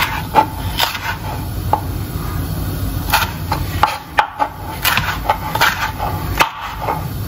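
Chef's knife slicing mini sweet peppers into strips on a plastic cutting board: irregular knocks of the blade meeting the board, over a steady low hum.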